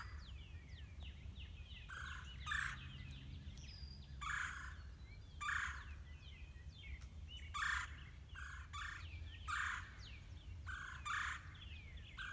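A pair of birds calling back and forth: short harsh calls repeated at irregular intervals about once a second, over thin, high, falling chirps from other songbirds.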